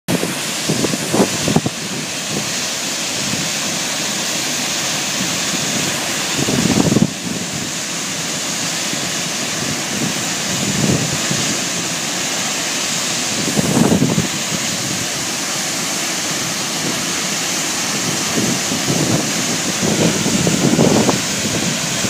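Chitrakoot Falls, the Indravati River dropping about 90 metres: a loud, steady rush of falling water. A few gusts of wind hit the microphone, about a second in, near 7 and 14 seconds, and towards the end.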